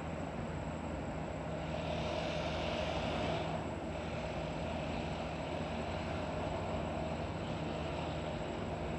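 Steady low machinery hum, with a hiss that comes in about two seconds in and fades out about two seconds later.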